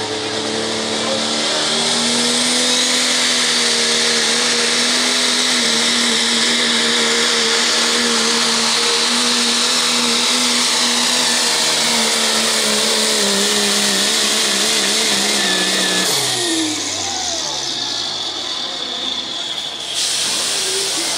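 Turbocharged Pro Stock diesel pickup engine, in a first-generation Dodge, run hard at full throttle while pulling the weight-transfer sled. Its note holds steady for about fifteen seconds, then the pitch drops sharply as the truck slows to a stop.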